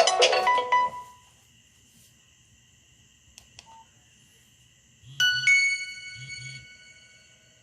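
Nokia 6085 phone speaker playing ringtones. A busy melodic polyphonic ringtone ends about a second in, and a few faint clicks follow. About five seconds in, the next ringtone starts with a bell-like chord that rings and fades.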